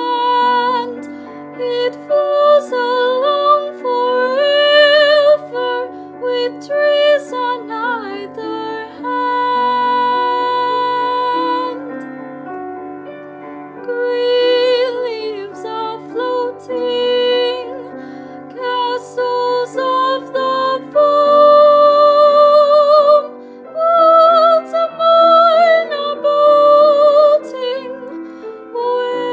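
A woman singing a slow solo ballad over a piano accompaniment, holding long notes with vibrato.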